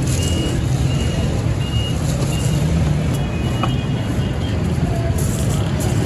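Steady low rumble of busy street traffic, with a few short high beeps in the first half. Near the end there is a crinkling of aluminium foil being pressed over a clay pot.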